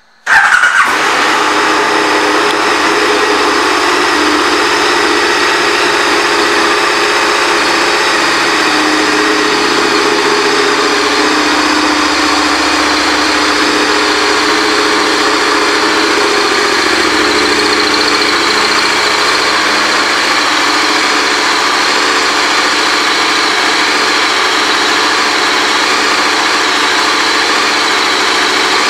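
KTM 1190 Adventure's 1195 cc LC8 V-twin starting up, with a brief loud flare as it fires, then idling steadily.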